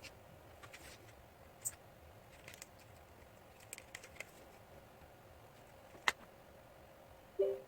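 Faint, scattered small clicks and light taps from a laptop and small tools being handled during a RAM upgrade, with one sharper click about six seconds in and a brief squeak near the end.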